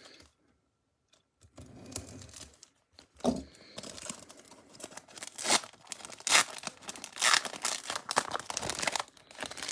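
Plastic card pack wrapper being crinkled and torn open by gloved fingers, starting about a second and a half in, with a string of sharp crackles.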